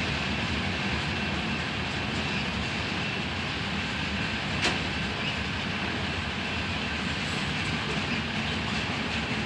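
Union Pacific freight train of covered hopper cars rolling past at steady speed, wheels running over the rails. There is one sharp click about halfway through.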